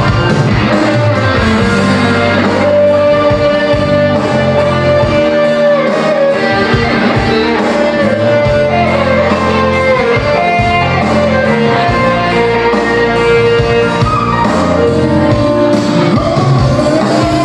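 Live instrumental music from an electronic keyboard, a steady bass line under a held lead melody, with a singing voice coming back in near the end.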